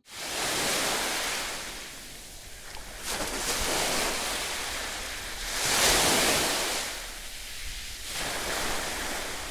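Sea water washing and surging in swells, like waves on a shore, loudest about six seconds in.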